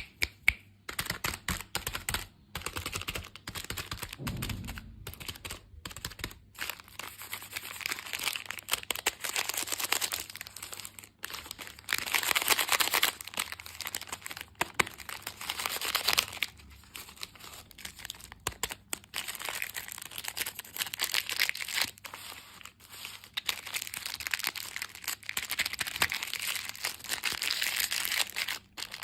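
Close-up crinkling and tearing of plastic candy packaging. It goes on in a dense crackle of small clicks, with louder spells and brief pauses.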